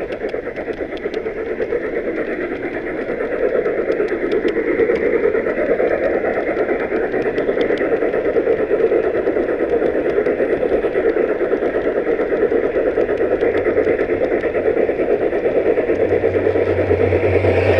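Steady running noise of a large-scale model steam locomotive and its train rolling on the track, heard from up close on the tender. A low hum joins in near the end.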